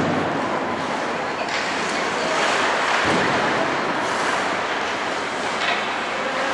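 Ice hockey play in a rink: a steady scraping hiss of skates on the ice, broken by a few sharp knocks from the play.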